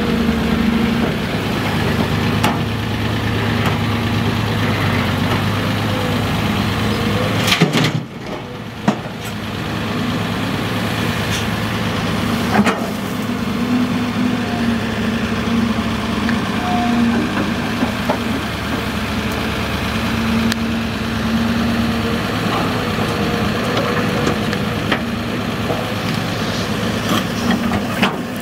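Heavy diesel engines running: a dump truck's engine for the first few seconds, then, after a sudden break about eight seconds in, a Caterpillar 320C excavator's engine running steadily as it digs. A few sharp knocks sound over the engine.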